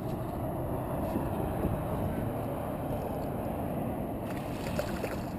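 Steady wind rumble on the microphone over a small fishing boat sitting on the water, with a few faint ticks near the end.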